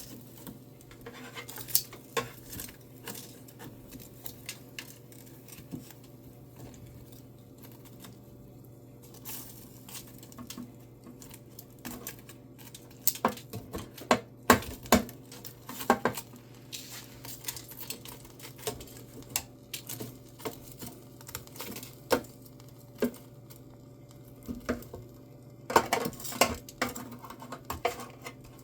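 Kitchen utensils clinking and scraping against the air fryer basket as chicken legs are turned over, in scattered sharp clicks that are busiest around the middle and near the end.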